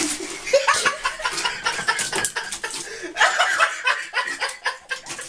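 A person laughing in short, breathy, broken bursts.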